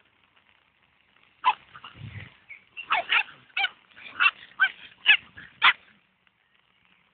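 Dogs at play, a Cavalier King Charles Spaniel puppy and a fox terrier, giving short, high-pitched barks and yips: about eight in quick succession, starting about a second and a half in and stopping near the end.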